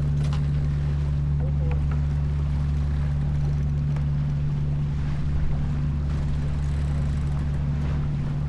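Steady low drone with a light hiss of wind and water aboard a J24 keelboat under way, unchanging throughout.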